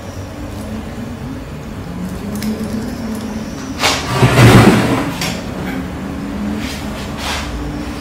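A cat rubbing and rolling on a wooden tabletop sprinkled with catnip: fur scraping and rustling against the wood, loudest about four seconds in as it rolls onto its back, with a few shorter scuffs after. A steady low hum runs underneath.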